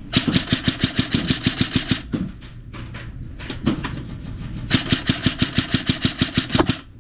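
Airsoft guns firing two long full-auto bursts of rapid, evenly spaced shots, one at the start and one from the middle to near the end, with a few single shots between.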